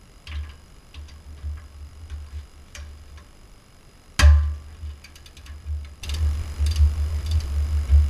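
Ratchet and socket working the hub-mounting bolts on the back of a Jeep steering knuckle: scattered clicks, one sharp clank about four seconds in, then quick ratchet clicking from about six seconds on as a bolt is backed out.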